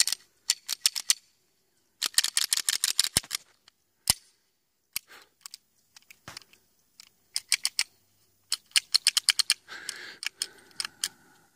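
Beretta 92FS pistol's action being worked by hand: runs of sharp metallic clicks and clacks from the slide and trigger, with single clicks between. The sand- and mud-fouled action is sticking, with something gummed up inside.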